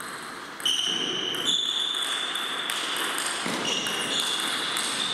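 Table tennis rally: the celluloid-type ball clicking off paddles and the table, about two to three sharp, ringing clicks a second.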